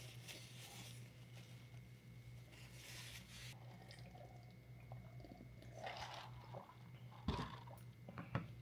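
Faint close-miked eating sounds, quiet chewing and mouth noises, over a steady low electrical hum, with a short knock about seven seconds in.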